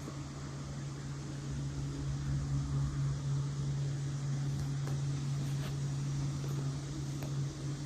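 A motor running with a steady low hum over a soft hiss, with a few faint clicks.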